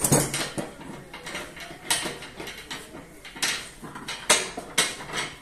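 Metal tools and steel pipe clanking against a bench pipe vise and workbench: a string of sharp metallic knocks and clinks at irregular intervals, about five of them loud.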